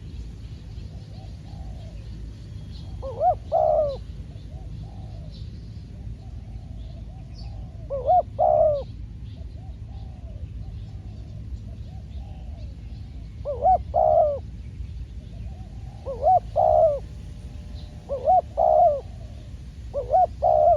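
Spotted doves cooing: six loud, rolling coo phrases a few seconds apart, with fainter answering coos in between.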